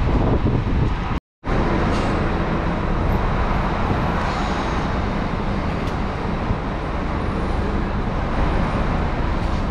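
Marcopolo G8 double-decker coach's engine and vehicle noise, a steady loud rumble. It drops out completely for a moment about a second in.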